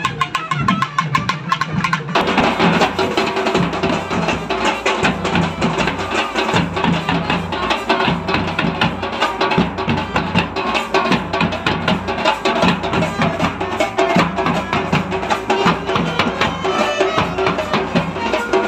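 Tamil street drum band playing a fast, dense rhythm: large steel-shelled drums and smaller drums beaten with sticks. The sound changes about two seconds in, becoming fuller and closer.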